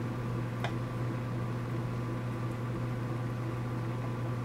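Steady low hum of running machinery with a faint hiss, and one small click about half a second in.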